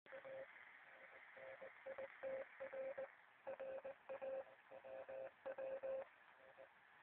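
Morse code (CW) signal on 8010 kHz from a RadioShack portable shortwave receiver's speaker. A single mid-pitched beep tone is keyed on and off in short and long elements over steady hiss and static. It is a full Morse message, not a single-letter beacon.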